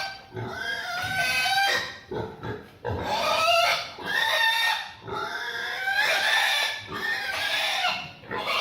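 Piglet squealing loudly in a run of long, high squeals, one after another with brief breaks, as it is caught and held for a vaccine injection.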